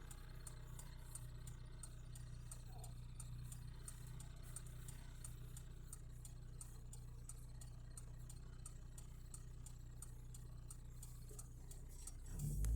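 Car cabin with the engine idling as a low, steady hum, and a fast, even ticking of about two to three clicks a second, typical of a turn-signal indicator. A louder sound comes in near the end.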